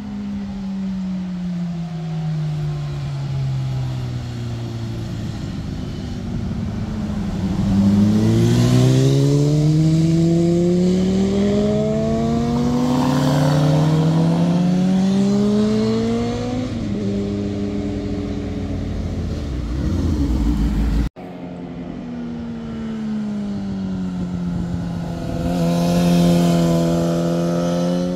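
Motorcycle engines passing through bends: the pitch falls as a bike slows, then climbs in two rising sweeps as it accelerates away through a gear change, loudest in the middle. After an abrupt cut about two-thirds through, another motorcycle engine dips in pitch and then runs steadily.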